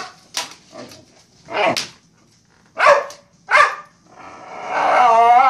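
Boxer dog barking, a handful of short single barks spaced roughly a second apart; near the end it breaks into a long, wavering whining moan.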